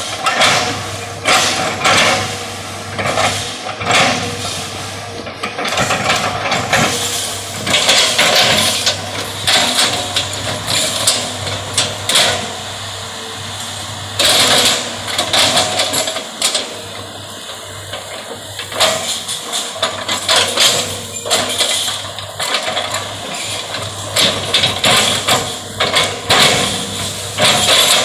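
Excavator's diesel engine running steadily, with irregular clanks, knocks and clatter from the machine working.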